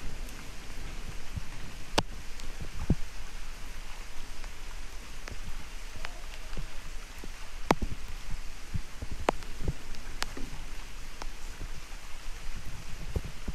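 Steady rain falling, a continuous hiss with scattered sharp drips of water striking surfaces close to the microphone, about one every second or so.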